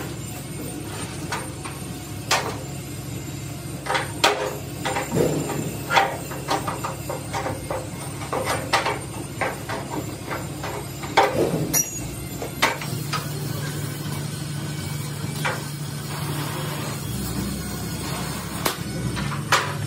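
Irregular metallic taps and knocks of hand tools working the bent edge of a steel excavator cab panel, coming thick for about the first twelve seconds, then only now and then over a steady low hum.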